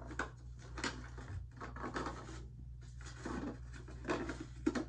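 Hands handling a plastic dinosaur toy close to the microphone, working at something stuck inside it. Irregular small clicks, scrapes and rubbing noises come every half second or so.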